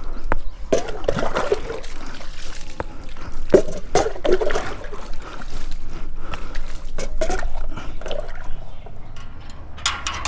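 Water splashed by the mugful from a plastic mug onto a muddy motorcycle and splattering onto concrete, with scooping from a metal pot and hand rubbing in between, in irregular splashes. Right at the end, a metal gate squeaks as it is pulled open.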